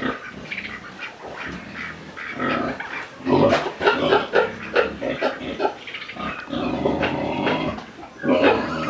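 Pigs grunting, with a louder run of quick, repeated grunts a few seconds in and another loud call near the end.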